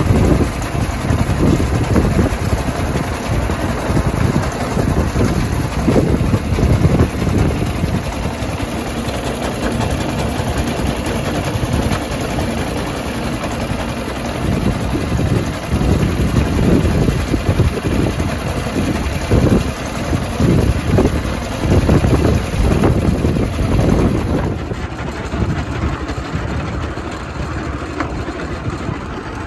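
Engine of a miniature railway locomotive running steadily as it hauls a wagon along the track, with a dense low rumble and frequent irregular knocks from the running gear. The sound drops a little about 25 seconds in.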